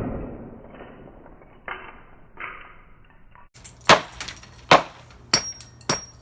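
Hammer striking the hard plastic casing of an alarm clock radio. A heavy blow just before dies away, with a couple of faint knocks, then from about four seconds in come four sharp strikes, one leaving a short high ring.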